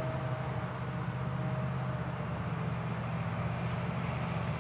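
Krone Big X 770 forage harvester running steadily while chopping maize and blowing it into a trailer, a low, even engine drone with a faint steady whine above it; a tractor engine alongside adds to the drone.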